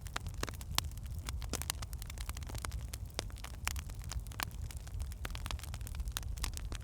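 Wood fire burning in a fireplace: logs crackling and popping in frequent irregular sharp snaps over a steady low rumble of flame.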